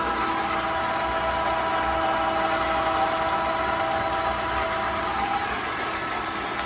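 South Bend 13 metal lathe running under power cross feed, its 2 hp motor and gearing giving a steady hum with several whining tones that fade about five seconds in. A single sharp click comes right at the end.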